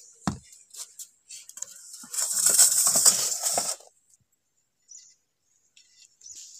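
Stainless steel bowl knocking on a cement floor, then its steel plate lid scraping and clinking against the rim for about two seconds as it is lifted off.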